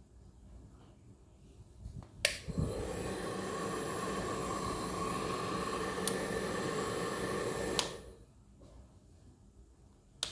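Moser Pro hair dryer switched on with a click, its fan running with a steady hum and faint whine for about five seconds, then switched off with another click.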